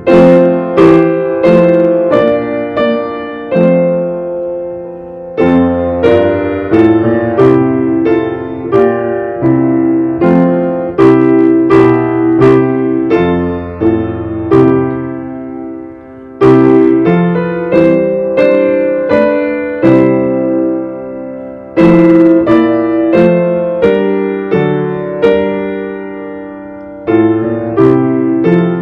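Upright piano being played: chords struck and left to ring, in phrases with brief pauses between them.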